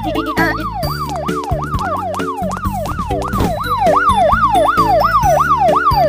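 Police car siren sweeping up and down about twice a second, getting louder about four seconds in, over background music.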